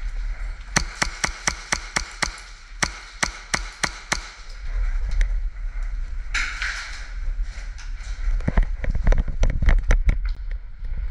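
HPA-powered Hi-Capa airsoft pistol firing in quick strings of sharp snapping shots, about four a second: a dozen in the first few seconds and another dense burst near the end. A short hiss comes about six seconds in.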